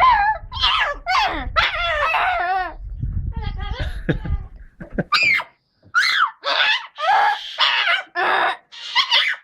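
A parrot screeching and a boy screaming and laughing, in a rapid series of short loud calls.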